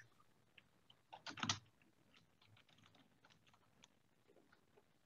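Faint computer keyboard keystrokes: a quick cluster of clicks about a second in, then a few scattered light taps.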